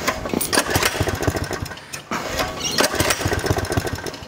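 Small minibike engine being pull-started on its recoil starter: twice it fires and runs roughly for a couple of seconds without settling into a steady idle. The owner puts its reluctance to keep running down to the idle being set too low.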